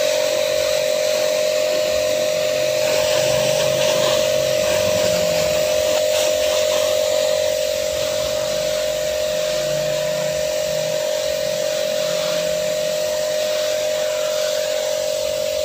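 Mollar HPW500 500-watt electric pressure washer running: a steady high motor hum over the hiss of its water jet spraying from a brass nozzle. The level drops slightly about halfway through.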